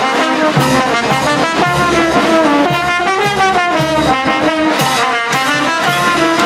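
Brass band playing a Majeño dance tune, brass carrying the melody over a steady bass-drum beat of about two strokes a second.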